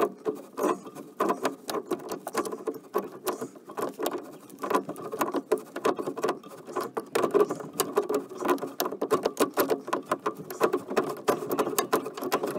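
Dense crackling, clicking and scraping from a threaded joint on an old metal sewer pipe being worked loose with a 14-inch pipe wrench, mixed with crinkling of the plastic vapor-barrier sheeting underneath.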